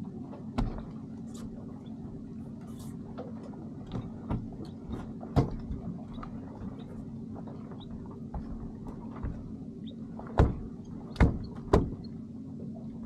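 A boat motor running steadily, with a few sharp knocks and thumps on the boat's deck as a freshly landed mackerel is handled in the landing net; the three loudest knocks come near the end.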